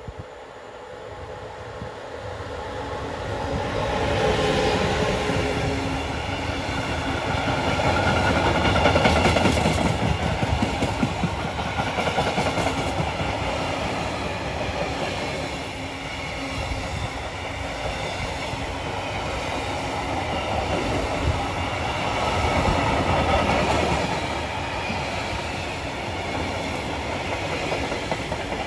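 DB Cargo Class 185 electric locomotive passing with an intermodal container freight train. The rumble builds over the first few seconds as the train nears, then the flat container wagons roll by with a steady rumble and clickety-clack of wheels on rail.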